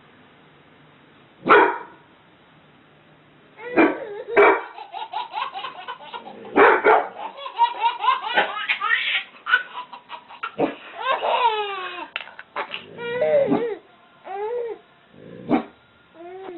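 A dog barking in single sharp barks, spread out with pauses between them, while a baby laughs in long giggling runs in between, most of all in the middle, then gives shorter squealing laughs near the end.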